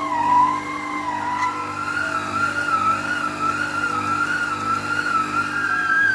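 Stand mixer kneading bread dough with a dough hook: a motor whine that wavers as the dough drags on the hook, stepping up in pitch about a second and a half in and again near the end.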